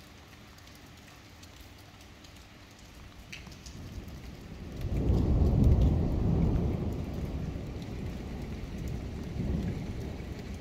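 Thunder rumbling over steady rain. The rumble builds from about three seconds in, is loudest a couple of seconds later, then slowly dies away.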